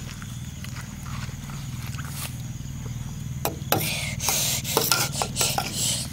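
Metal spoon scooping soft green plant jelly in a large stainless-steel tray. Light clicks of spoon on metal come first, then a run of louder scraping from about two-thirds of the way in. A steady low hum runs underneath.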